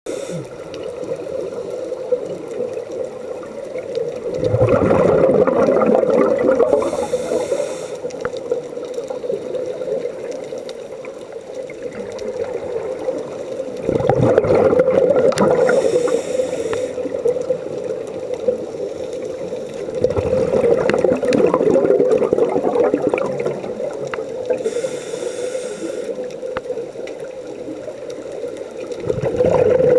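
Scuba diver breathing through a regulator underwater: four bubbling rushes of exhaled air, each lasting two to three seconds and coming about every eight to nine seconds, each followed by a short hiss of inhalation, over a steady background hum.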